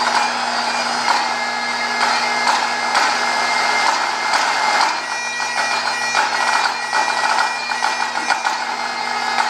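Great Highland bagpipe playing a tune over its steady drones, with a pipe-band snare drum playing crisp strokes and rolls alongside. The drumming grows busier about halfway through.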